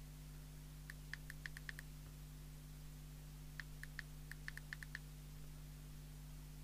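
Front-panel push buttons on a Jopix GS60 CB radio pressed in quick succession: two rapid runs of short, high clicks, about six and then about nine, as the settings in its service menu are stepped through. A faint steady hum lies underneath.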